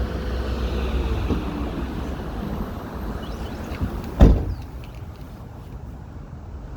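City street traffic: a vehicle running close by, its low rumble easing off after a couple of seconds, and a sudden loud thump a little after four seconds in.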